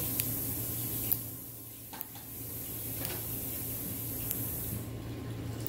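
Steady background hiss over a low hum, with a few faint clicks about a second apart; the high hiss drops away near the end.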